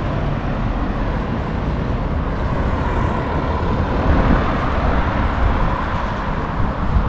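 Outdoor traffic noise: a motor vehicle running by over a steady low rumble, with a faint hum that rises in the middle and then fades.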